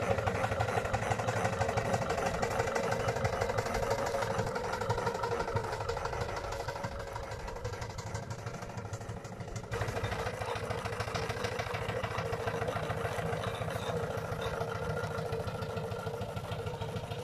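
3-inch scale Cliff and Bunting live steam traction engine running as it drives along, with a fast, even beat and mechanical clatter. The sound changes abruptly a little past halfway.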